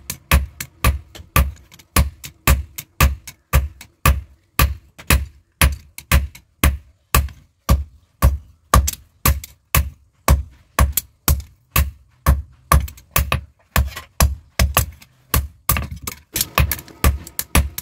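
Hand hammer forging a red-hot steel knife blade on a steel anvil block: a steady rhythm of ringing metal blows, about two a second, with lighter strikes in between.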